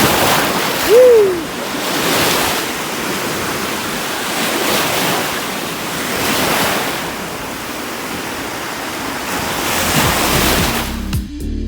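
Gulf of Mexico surf breaking on the beach, waves washing in every couple of seconds, with wind on the microphone. About a second in, a short tone rises and falls in pitch, the loudest moment, and music comes in near the end.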